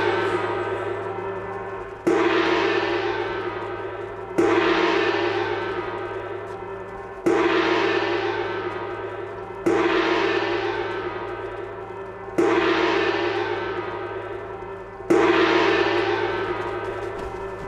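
A large Chinese gong struck slowly and evenly, six strokes about two and a half seconds apart, each ringing out and fading before the next. This is the measured way-clearing gong that heads an official's sedan-chair procession.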